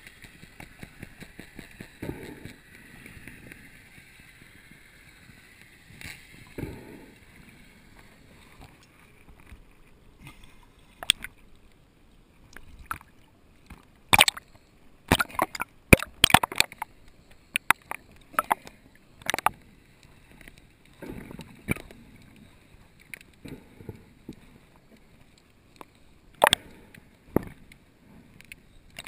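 Underwater sound picked up by a diver's camera: a faint steady hiss with fine crackling, then about halfway through a run of sharp splashes and knocks as the camera breaks the water's surface, with a few more knocks near the end.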